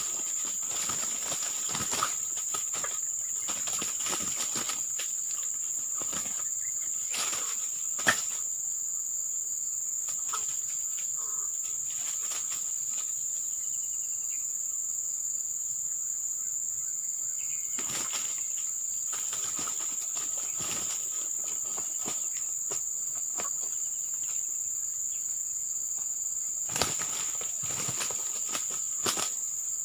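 Two junglefowl roosters fighting: repeated bursts of wing flapping and scuffling, with one sharper hit about eight seconds in, over a steady high-pitched insect drone.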